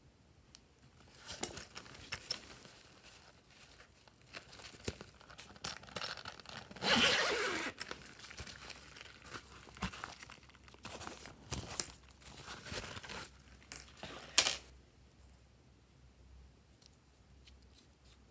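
Hands handling plastic toy cases and a zippered fabric pouch: scattered clicks, knocks and rustles, with a longer rasp of a zipper being pulled about seven seconds in and a sharp click near the end of the handling.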